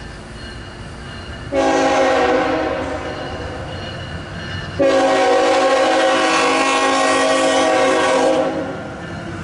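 Locomotive air horn on an approaching CSX intermodal freight train sounding two long blasts. The first starts about a second and a half in and eases off after a second or so. The second, longer one starts near the five-second mark and lasts about three and a half seconds, over a low rumble of the train.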